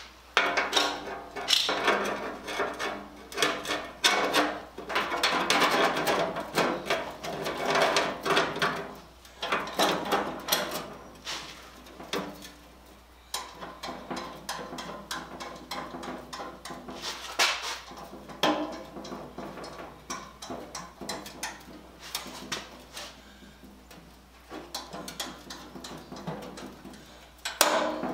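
Pitted steel sheet of a bin clanking and scraping as the panels are worked together and held with a locking clamp: irregular knocks with some metallic ringing, busiest in the first ten seconds and again near the end.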